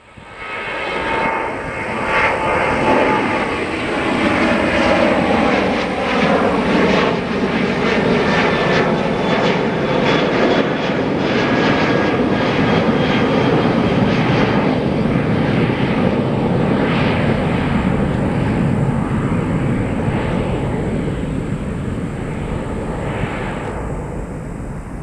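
Boeing 737's twin turbofan engines passing overhead on the climb-out after takeoff. A loud jet roar carries a whine that falls steadily in pitch over several seconds as the plane goes by, then slowly fades.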